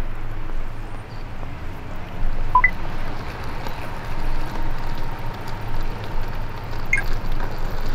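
Outdoor city ambience: a steady low hum with a faint held tone, and two short rising chirps about two and a half and seven seconds in.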